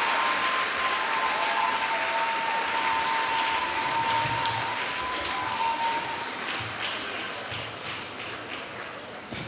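Arena audience applauding, the applause fading away over the last few seconds. A steady high tone sounds over it for the first six seconds or so.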